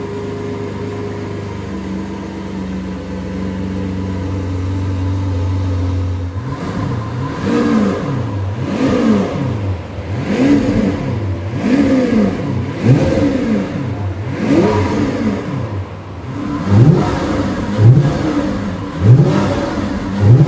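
Lamborghini Aventador Superveloce's 6.5-litre naturally aspirated V12 idling steadily, then revved over and over, each rev rising and falling about every second and a half. The last few revs near the end are shorter, sharper blips.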